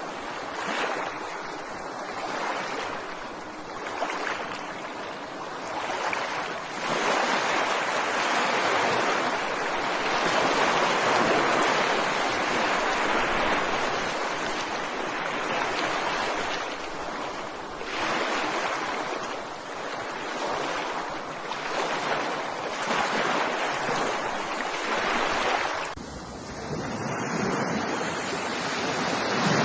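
Ocean waves breaking and washing on a beach, a continuous surf that swells and eases every few seconds.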